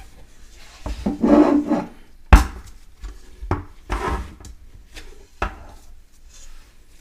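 Gloved hands kneading and scraping homemade playdough in a metal pot, with rubbing and scraping sounds and several sharp knocks; the loudest knock comes about two and a half seconds in.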